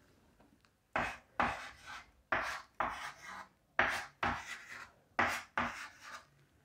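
Hand-writing strokes, scratchy and sharp-edged: four pairs of short strokes, each pair following the last about a second and a half later.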